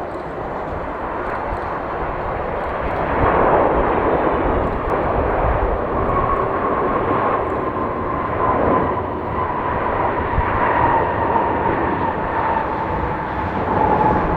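Jet airliner's engines passing close by: a steady rushing roar with a whine that slowly drops in pitch as the plane goes past. Low gusty rumble of wind on the microphone underneath.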